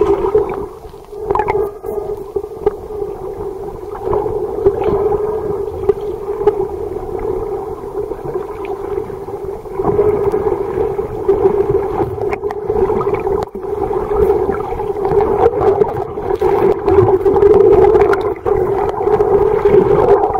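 Whale calls: long, wavering sounds held near one low-mid pitch, with scattered clicks, growing a little louder about halfway through.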